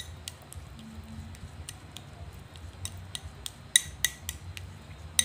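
A metal spoon mashing avocado in a ceramic bowl. The spoon clinks against the bowl's side in irregular ringing taps, at times several a second, with the sharpest strikes about two thirds of the way through and just before the end.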